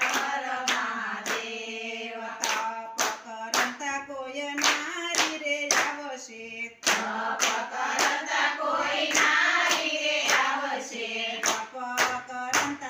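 A group of women singing a Gujarati Shiva bhajan in unison, clapping their hands in time about twice a second.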